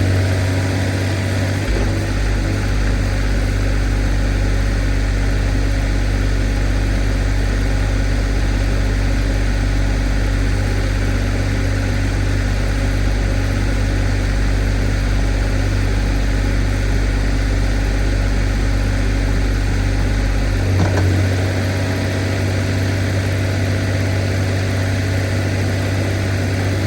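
Kubota KX040 mini excavator's diesel engine running steadily, heard from the cab with a deep hum. A short knock comes about three-quarters of the way through, and the lowest part of the hum drops away after it.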